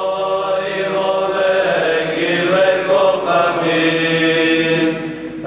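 Small men's choir chanting Orthodox liturgical music a cappella in sustained, slow-moving phrases. The voices ease off briefly near the end before the next phrase begins.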